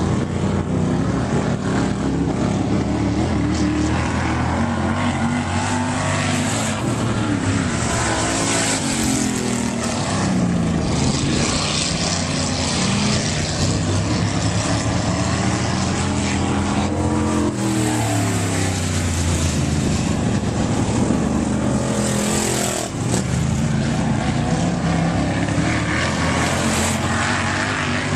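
Dirt-track race car engine running hard around the oval, its pitch rising and falling again and again as it speeds up on the straights and backs off into the turns.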